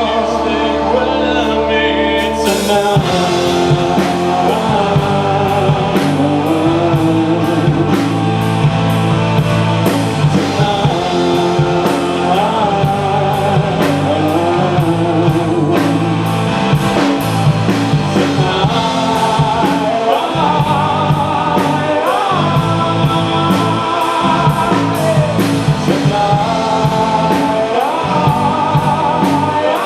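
A rock band playing live, with a steady drum beat under a gliding, wavering lead melody. The full band comes in with a cymbal crash a couple of seconds in.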